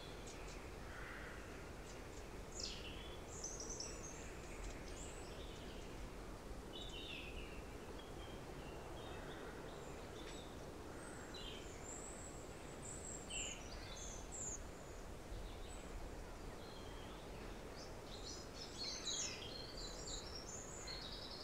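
Faint outdoor background with scattered short chirps and twitters of small birds over a low, steady hiss.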